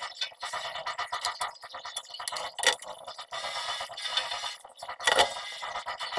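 Irregular clinking and clattering of hard objects, with louder knocks about two and a half and five seconds in.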